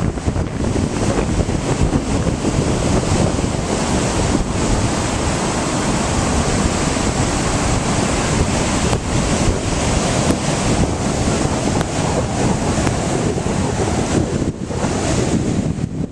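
Ocean surf with heavy wind buffeting the microphone, a steady loud rushing noise.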